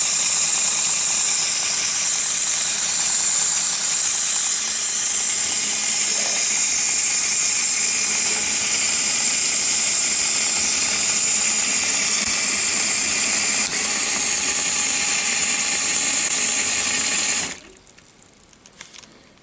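Lego Power Functions motor driving a Lego centrifugal water pump: a steady whir of the motor and plastic gears, mixed with water spraying and splashing from the pump's outlet. It cuts off suddenly near the end as the battery box is switched off, leaving only a few small clicks.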